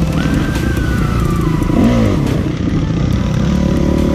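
Enduro dirt bike engines running and revving, their pitch rising and falling.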